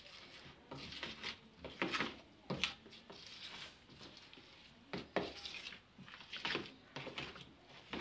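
A mixing utensil scraping and sloshing through thick cake batter in a plastic bowl, with irregular strokes as dry flour is folded into the wet mix by hand.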